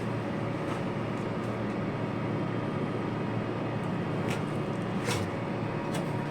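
Steady mechanical drone with faint steady tones in it, and a few light clicks late on as steel wire rope strands are worked into the splice.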